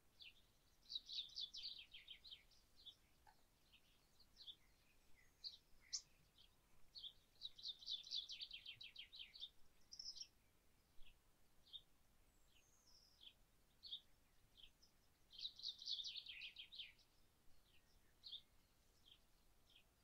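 Faint wild birdsong: a songbird sings a rapid trilled phrase three times, about a second in, around eight seconds in and around sixteen seconds in, with scattered short high chirps between.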